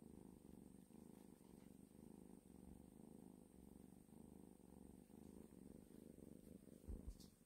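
Tabby kitten purring faintly, a low rumble that swells and fades in a steady rhythm with each breath. A short bump near the end.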